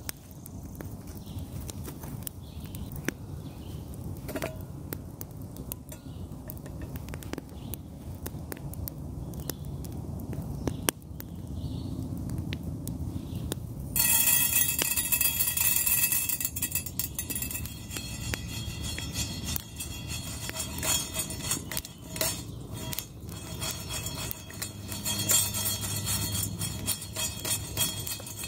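Campfire crackling with small clinks and knocks of metal on stone. About halfway through it gets suddenly louder, with the dry rattle and scrape of raw green coffee beans moving in a small black pan held over the fire.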